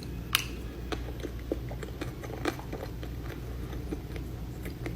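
Close-up eating sounds: biting into and chewing a dessert with a white chocolate outer shell. One sharp crack comes about a third of a second in, followed by scattered smaller clicks and soft chewing over a low steady hum.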